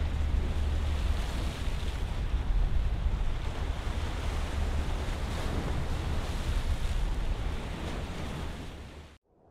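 Sea waves washing against a rocky shore, an even rush of surf with wind rumbling on the microphone. It fades out near the end and cuts off.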